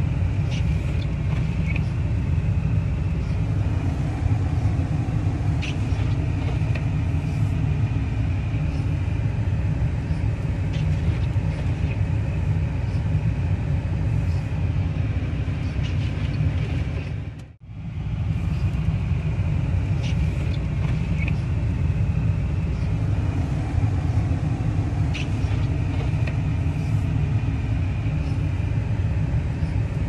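Steady low rumble inside a pickup truck cab: the truck's engine idling and its heater running to warm the calves. It cuts out briefly a little past halfway.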